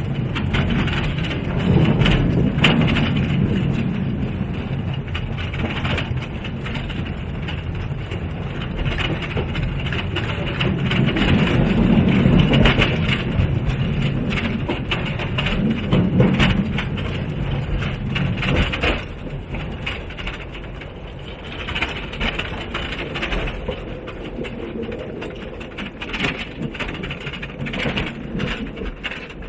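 Small mine trolley train running on narrow-gauge rails, a continuous rattling rumble with clacks from the wheels and cars. The rumble swells and eases and grows quieter over the last ten seconds.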